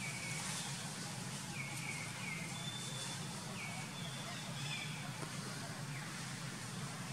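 Steady outdoor forest background with a constant low hum, and several short, thin, high chirping calls scattered through it.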